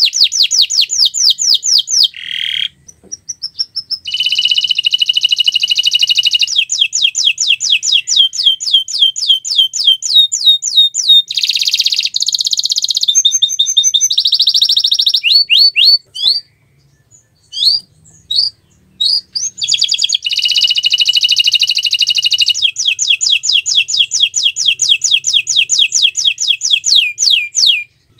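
Domestic canary singing a long song of fast repeated trills and rolls, broken by short pauses about two and a half seconds in and around sixteen to nineteen seconds.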